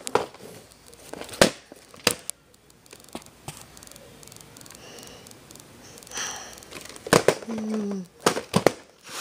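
Handling noise from a VHS tape in its sleeve being picked up and turned over: scattered sharp clicks and knocks with soft rubbing and crinkling, the loudest clicks about a second and two seconds in and several more near the end.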